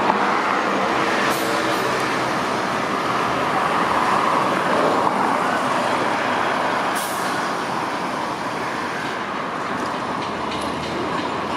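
Hiroshima Electric Railway 'Green Liner' tram running past close by on street track, its steady rumble loudest over the first half and then easing, with street traffic underneath.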